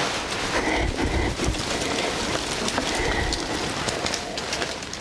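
Dry autumn leaves rustling and crackling in the wind: a steady noise made of many small crackles, with low gusts on the microphone about a second in and again around three seconds in.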